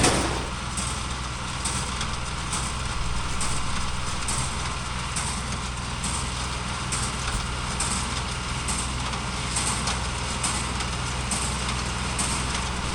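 Tractor engine running steadily while pulling a small old square baler, with a faint clack about once a second from the baler working.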